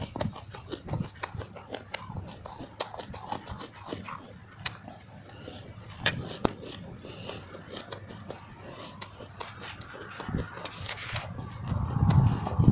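Snow being chewed close to the microphone: a dense, irregular run of crisp crunches and mouth clicks, with heavier crunching near the end.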